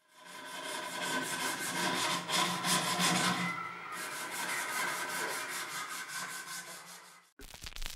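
A hand tool scraping rapidly back and forth on a clamped knife handle, several strokes a second, with a faint ringing note riding on the strokes. It stops abruptly about seven seconds in.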